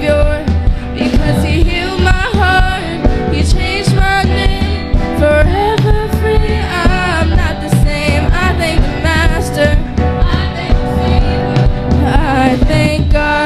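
Worship band and singers performing a gospel song: voices singing with vibrato over a steady drum beat and instruments.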